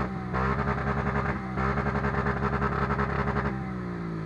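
Off-road vehicle's engine revving hard in two long bursts with a brief dip between them, then dropping back toward idle near the end, as it spins its wheels trying to climb out of a muddy ditch.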